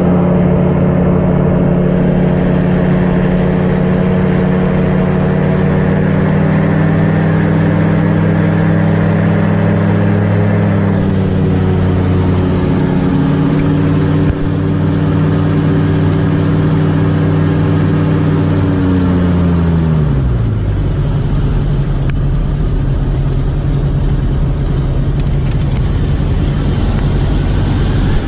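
Propeller engine of a light aircraft running steadily. Its note dips slightly about eleven seconds in, then glides sharply down near twenty seconds, leaving a lower steady drone.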